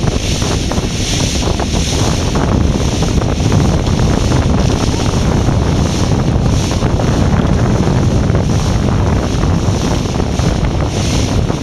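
Strong wind buffeting the microphone, a steady low rumble, over choppy water rushing and splashing around a fast-moving sailboat, the hiss of the spray swelling and fading every second or so.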